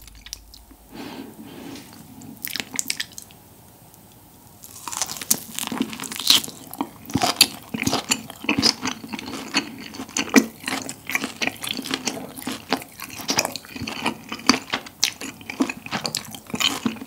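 Close-miked chewing of a bite of grilled Iberico bellota pork: wet, squishy mouth sounds with many small clicks. It is faint at first, goes briefly quiet, then becomes steady chewing about five seconds in. The chewy, bouncy meat is chewed at length.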